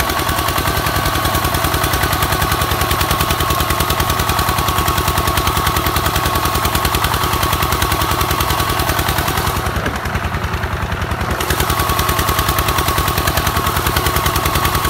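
RTZ155 walking tractor's single-cylinder diesel engine chugging under load as it works through a flooded rice paddy: a fast, even train of exhaust beats with a steady whine over it. The sound thins briefly about ten seconds in, then picks up again.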